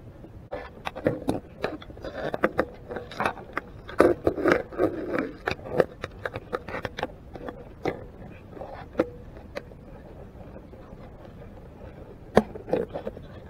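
Green shore crabs' claws and legs clicking and scraping against an underwater camera housing: a busy run of sharp clicks for most of the first ten seconds, then a short cluster again near the end.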